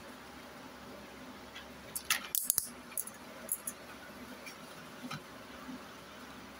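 Rigid clear plastic clamshell pack being cut at its seal and pried open: a burst of sharp plastic clicks and crackles about two seconds in, then a few lighter clicks.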